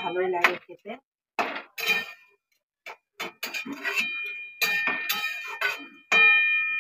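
Metal spoon knocking and scraping against a metal kadai while greens and potato are stirred. It comes in short bouts with pauses between, and some knocks leave the pan ringing briefly.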